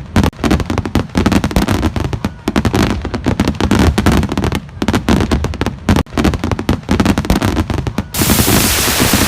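Fireworks display: a dense, irregular run of bangs and crackling. Near the end it cuts off suddenly into a steady hiss.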